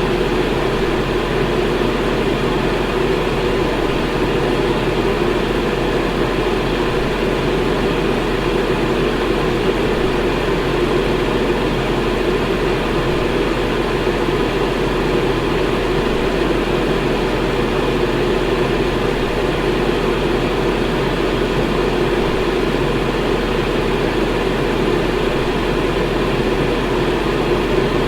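Electric fan running with a steady whooshing rush of air and a low motor hum.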